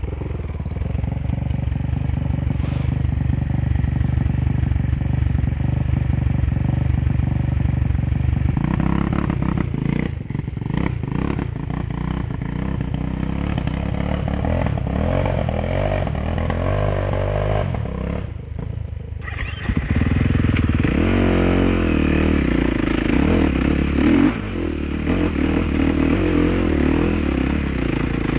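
KTM 450 SX single-cylinder dirt bike engine under way on a trail, the throttle opening and closing so the revs rise and fall. About two-thirds of the way in it drops off briefly, then picks up and climbs again.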